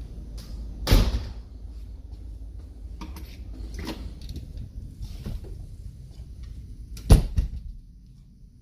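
Doors being opened and knocking shut: a loud clunk about a second in and a double clunk near seven seconds, with softer handle and latch knocks between, over a steady low hum.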